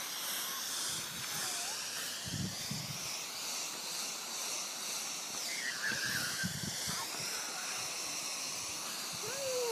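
Garden hose spraying a thin stream of water, a steady hiss.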